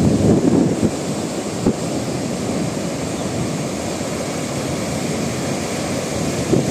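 Sea waves breaking and washing up on a sandy beach, a steady rushing surf, with wind buffeting the microphone in gusts.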